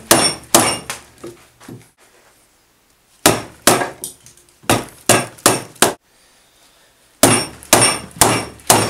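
Mallet blows driving a chisel into a wooden mortise to chop out the waste between drilled holes. The strikes come about two a second in three short runs with brief pauses between, each blow sharp with a short metallic ring.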